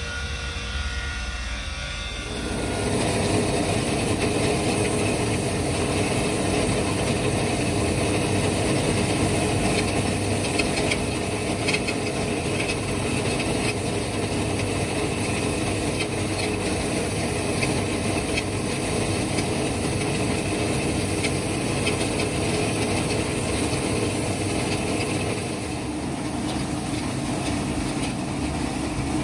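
A drill press running steadily with a buffing wheel in its chuck, a small wooden carving pressed against the spinning wheel to smooth and polish it. The machine noise starts about two seconds in.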